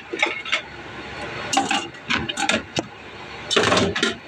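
Kitchen clatter: dishes and containers knocked and set down on a counter, a string of irregular clinks and knocks with a louder cluster near the end.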